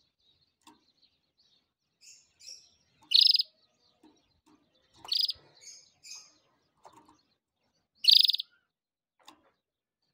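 Canary chirping: three loud, short trilled notes spaced a few seconds apart, with softer high chirps in between.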